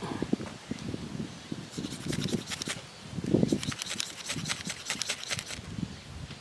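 Dry twigs and brush rustling and crunching while firewood is gathered, with irregular dull knocks and two runs of rapid sharp crackles near the middle.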